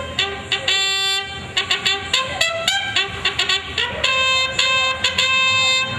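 Brass band playing: a run of short, sharply attacked notes mixed with a few held ones.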